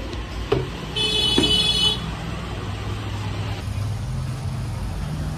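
A vehicle horn honks once for about a second, high-pitched and steady, over a steady low rumble, with a sharp knock just before it.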